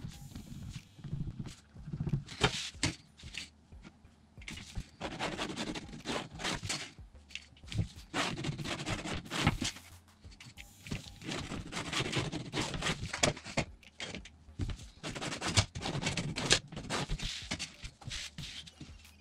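Graphite pencil scratching lines onto vinyl along a metal ruler, with the ruler slid and set down on a cutting mat: irregular scrapes and knocks.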